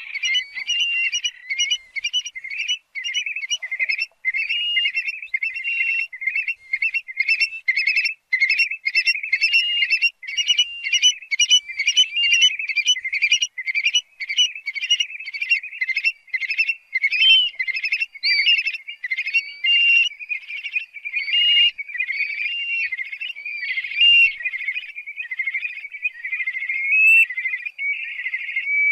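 Stone-curlew (karawan) calling: a long, unbroken series of shrill piping whistles, about three notes a second.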